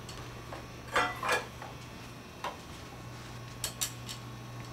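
About five light clicks and clinks of lighting gear being handled, the loudest about a second in and two close together near the end, over a steady low hum.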